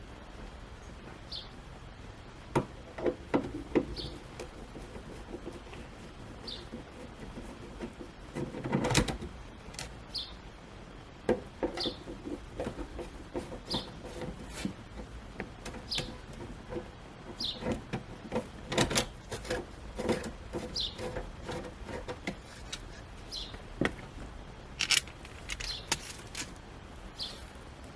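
A bird chirping over and over, one short high call about every two seconds. Beneath it come scattered clicks and knocks and a louder rustling scrape about nine seconds in, from hands working on the car's interior trim.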